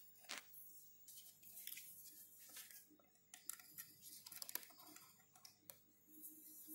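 Faint scattered clicks and scratches of small metal tools handling a graphics card's circuit board, over a faint steady hum.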